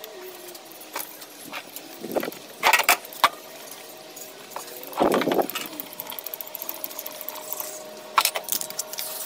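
Metal hand tools and lathe parts being handled on a small bench metal lathe: scattered clicks and clattering metal knocks, loudest about two seconds in, five seconds in and eight seconds in, over a faint steady hum.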